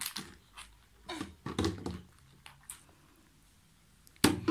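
A toddler's wordless vocal sounds in short bursts, loudest near the end, with a few light clicks in between as walnuts are handled.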